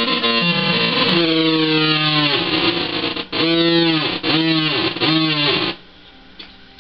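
Electric guitar played through the breadboarded fuzz section of a Schumann Two Face fuzz pedal: a loud, buzzy fuzz tone with held notes that swoop down and back up in pitch. It stops about three-quarters of the way through, leaving a faint hum.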